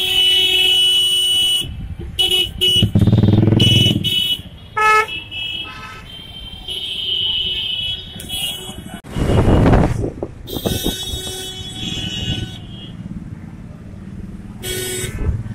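Dense city traffic with many vehicle horns honking, some in short toots and some held for a second or more, over engine and road noise. About halfway through, a loud rush of noise briefly covers everything.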